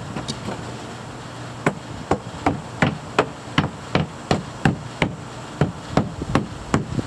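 Repeated hammer blows in a steady rhythm, about three a second, starting about a second and a half in.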